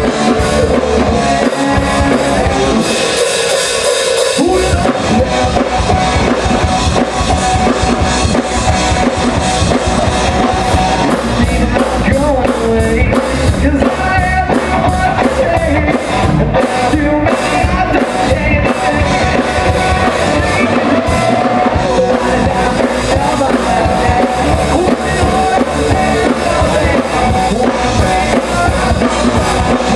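Live rock band playing loudly: drum kit, bass guitar, electric guitar and lead vocals. About three seconds in, the bass and drums drop out for a moment under a cymbal wash, then the full band comes back in.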